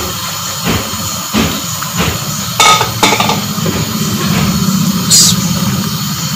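A cooking spoon knocking against a pot of boiling chickpea curry several times as it is stirred, over a steady low hum.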